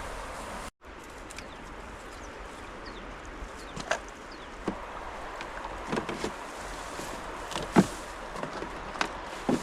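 Steady outdoor background hiss, cut off briefly under a second in, then scattered sharp knocks and clicks that come more often toward the end, the loudest about eight seconds in.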